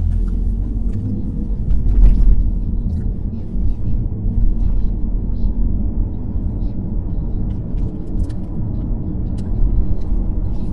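A car driving along: a steady low rumble of tyre and engine noise, with a few faint clicks scattered through it.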